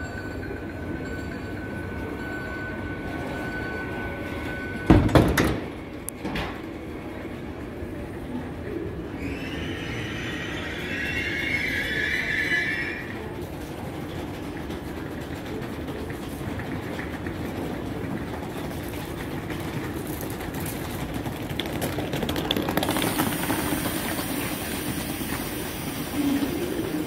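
TGV Duplex double-deck high-speed train standing at the platform with its equipment humming. A steady warning tone stops about five seconds in, just as a loud slam marks the doors closing. A hiss follows a few seconds later, and a high hiss joins near the end as the train gets ready to pull out.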